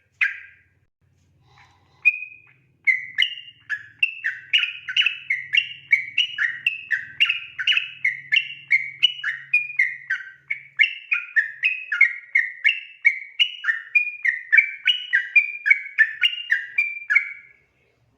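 Yellow-vented bulbul (trucukan) singing its 'ropel' song: after two single notes it sets off on a long unbroken run of slurred whistled notes, about three a second, which stops shortly before the end.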